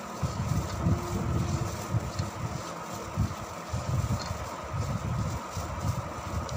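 Hands mixing chicken pieces with yogurt, spices and oil in a bowl: irregular soft, wet squelching and thudding.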